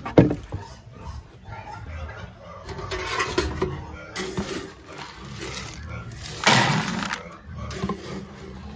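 Dry pelleted animal feed being scooped from a plastic barrel and poured into a bucket: a sharp knock at the start, then several rattling pours of pellets, the loudest about six and a half seconds in.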